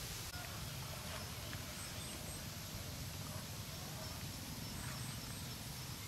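Steady rural outdoor ambience: a low hum and an even hiss, with faint, short high chirps repeating now and then.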